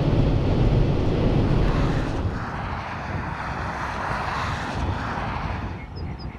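Steady road and wind noise of a moving vehicle, a heavy low rumble at first that eases after about two seconds into a lighter rushing haze. A run of about six short high chirps comes near the end.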